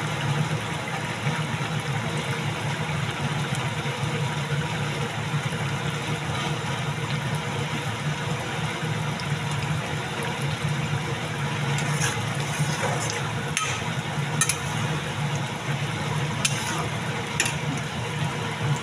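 Curry of dhekі saag and masoor dal pakoras simmering in an iron kadai on a gas stove: a steady sizzling bubble, with a few sharp clicks in the second half.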